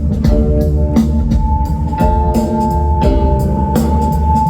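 Live rock band playing an instrumental stretch between vocal lines: steady drum hits over heavy bass, with a high note held from about a second in.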